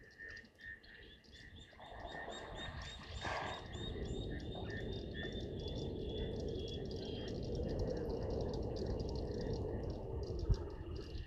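Frogs calling in quick, repeated chirps, over a broad rushing noise that swells about two seconds in and cuts off suddenly near the end.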